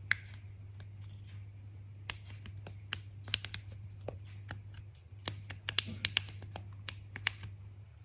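Plastic links of a snap-and-click chain fidget toy clicking sharply as they are bent to new angles, in irregular runs of clicks with short pauses between them.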